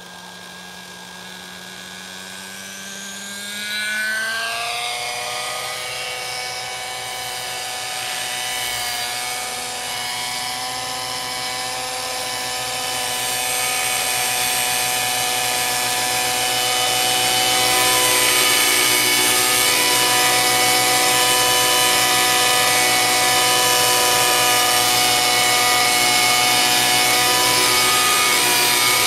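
Nitro-powered T-Rex 600 RC helicopter's Redline .53 glow engine with Redline Hi Flow pipe, together with its spinning rotors, spooling up with a rising whine over the first few seconds. It then runs at steady high revs through lift-off and hover, growing louder until about two-thirds of the way in.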